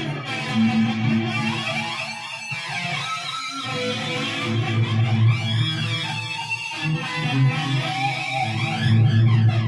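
Electric guitar playing, with held notes and chords.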